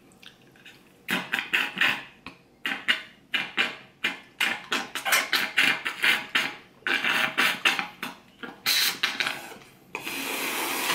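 Broth being slurped through a drinking straw from inside a giant soup dumpling (xiaolongbao): a long run of short, uneven sucking slurps, then one steady slurping hiss near the end as the last of the broth is drawn out.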